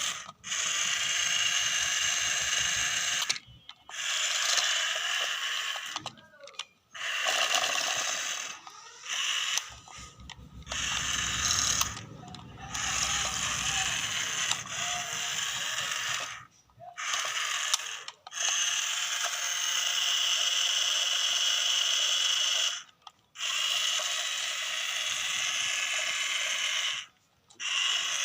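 Small battery-powered electric gear motors of a remote-control toy wheel excavator whirring in runs of one to several seconds, stopping and restarting abruptly about ten times.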